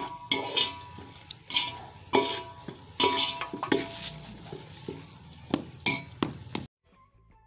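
Kitchen knife clinking and scraping against a steel bowl and plate while radish is cut: about a dozen irregular sharp clinks, several with a short metallic ring. It cuts off suddenly near the end.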